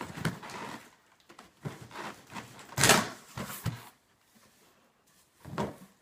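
An insulated shipping box being opened and its packaging handled: rustling and several knocks and bumps, the loudest about three seconds in.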